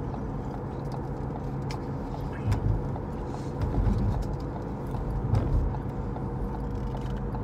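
Steady low engine drone with a constant hum and no change in pitch.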